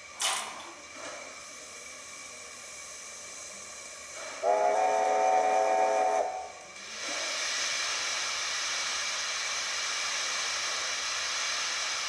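Steam locomotive sound effects from a model steam locomotive: a sharp click near the start, then a steam whistle sounding for about two seconds, followed by a steady hiss of steam to the end.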